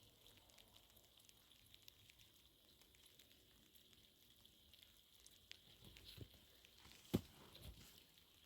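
Faint crackling of a wood fire, sparse small ticks and pops over a low hiss, with one sharper pop a little after seven seconds.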